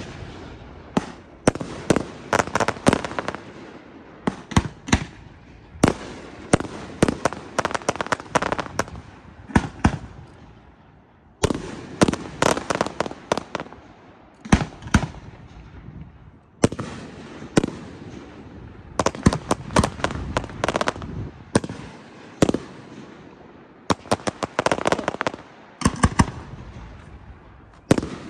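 Aerial fireworks display: shells bursting in rapid volleys of sharp bangs, in clusters of several seconds broken by short lulls of about a second.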